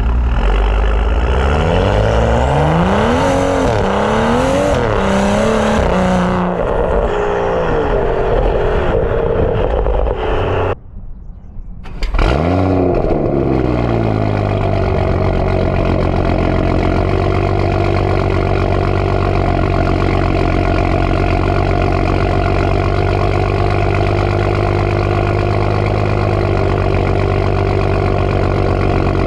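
BMW 335i's N55 turbocharged inline-six through a catless downpipe and M Performance exhaust, revving up and down several times. After about ten seconds the sound drops out briefly, then the engine flares up and settles into a steady idle.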